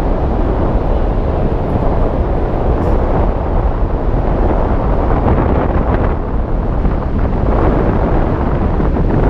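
Loud, steady wind rushing over a camera microphone carried through the air on a paraglider in flight.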